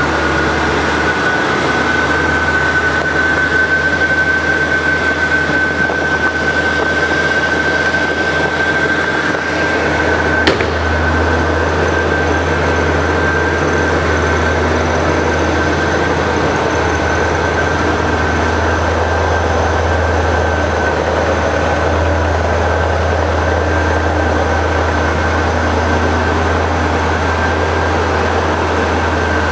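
A 1972 Chevrolet Corvette's small-block 350 V8 with headers and dual exhaust idling steadily, with a steady high whine over it. A single short click about ten seconds in.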